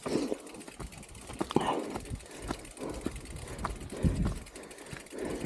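Mountain bike riding down a rough, muddy trail: irregular clicks, knocks and rattles from the bike and tyres over the ground, with a low rumble.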